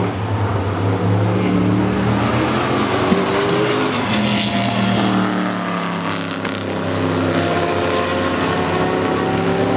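Loud race car engines approaching and passing through a corner, led by a Chevrolet Corvette C6.R's 7.0-litre LS7.R V8 with another GT car close behind. The engine pitch falls and rises again several times as the cars brake and accelerate.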